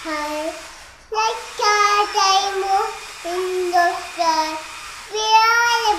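A young girl singing a tune alone, her high voice holding a string of notes, with a longer held note near the end.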